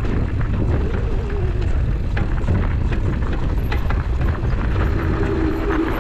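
Mountain bike riding over a rough trail. Heavy wind rumble on the microphone, with frequent small knocks and rattles.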